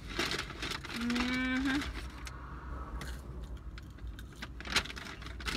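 Rustling and crinkling of fast-food packaging and sauce packets being handled, with a short hummed "mm" about a second in and a few light clicks near the end. A low steady rumble of wind through a cracked car window sits underneath.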